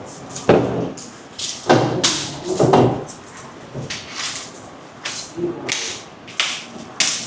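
Irregular rustling and clattering of things being handled, with short bursts of muffled talk.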